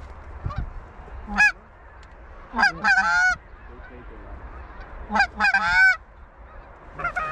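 Canada goose honks and clucks: a single honk about a second in, then two quick runs of rising-and-falling calls.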